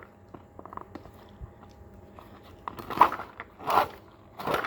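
Dry-rotted rubber bicycle tire being worked off its rim by hand: faint small clicks, then three short, loud crunching scrapes less than a second apart in the second half.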